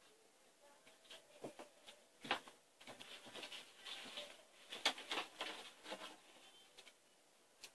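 Soft rustling and scratching with scattered light clicks, loudest about two and a half and five seconds in.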